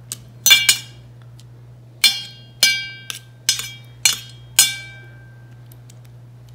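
Metal fork clinking against a stainless steel mixing bowl as it presses a roasted eggplant into beaten egg: a run of about seven sharp, ringing clinks in the first five seconds.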